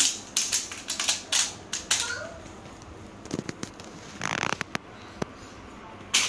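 Crinkling and crackling of a small piece of clear plastic squeezed in a baby's hands: a quick run of sharp crackles in the first two seconds, scattered clicks after, and a louder burst of crinkling near the end.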